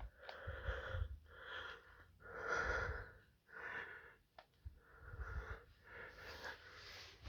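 A series of breathy, noisy swells close to the microphone, about six of them, each under a second, with a few faint clicks in between.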